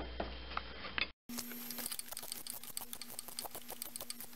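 Hand ratchet clicking in quick, uneven strokes as a 13 mm deep socket works a nut loose, with a brief dropout about a second in; after it a steady low hum runs under the clicks.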